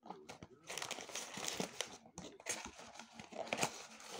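Paper takeaway food packaging crinkling and rustling as it is handled and opened, a dense run of small crackles with a brief pause about halfway through.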